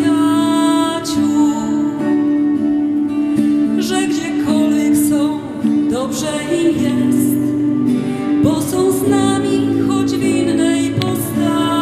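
Female soloist singing a slow Polish Christmas carol into a microphone, accompanied by guitar and a small string ensemble.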